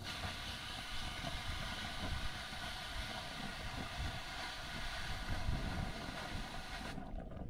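Marina pump-out hose sucking from a boat's waste holding tank: a steady suction hiss with a whine and a low rumble, which cuts off suddenly near the end.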